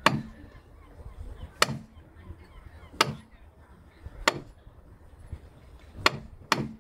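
Caulking mallet striking a caulking iron, driving oakum into a wooden deck seam: about six sharp knocks, spaced a second or so apart, the last two close together.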